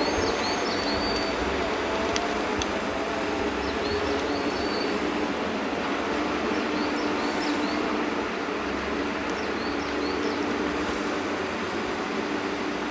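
HSM 208F forestry forwarder's diesel engine and drive running steadily with a constant whine as the loaded machine travels on its bogie tracks. Small birds chirp briefly several times above it.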